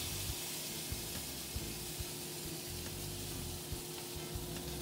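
Steak searing in smoking-hot oil in a cast-iron skillet: a steady sizzle, with a faint steady hum underneath.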